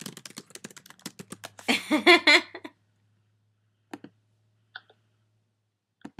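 Typing on a computer keyboard, a quick run of keystrokes for about a second and a half, followed by a brief snatch of a voice, then quiet with a single click about four seconds in.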